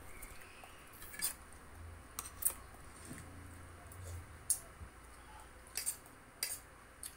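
A handful of short, sharp clicks and light clinks, about five of them at uneven intervals, over a faint steady low hum.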